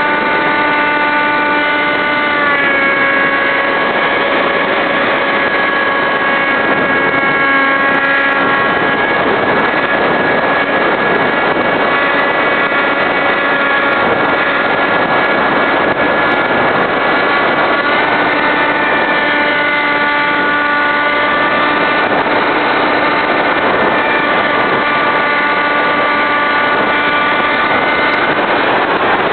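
Electric motor and propeller of a Skysurfer RC model glider, whining steadily under power, heard from a camera on the airframe over rushing air noise. The pitch steps down slightly about two seconds in and back up around eighteen seconds, and the whine stops near the end.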